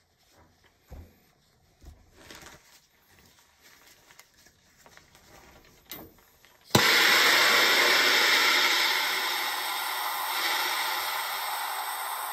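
Faint rubbing as a rag is wiped over copper pipe, then about seven seconds in a handheld gas torch lights with a sudden pop and hisses steadily as its flame heats a copper pipe fitting.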